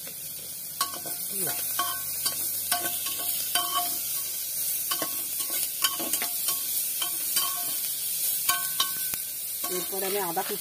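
Sliced onions sizzling in butter in an aluminium pressure cooker, stirred with a metal spatula that scrapes and clinks against the pot at irregular moments.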